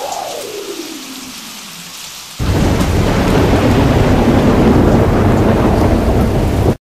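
Rain with a thunderstorm: a pitched tone rises and then slowly slides down over the rain, then about two and a half seconds in a loud, deep thunder rumble sets in and runs on until it cuts off suddenly near the end.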